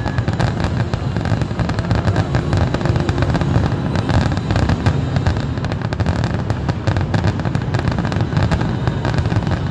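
Fireworks finale barrage: aerial shells bursting in rapid, continuous succession, many overlapping booms merging into a steady rumble with no break.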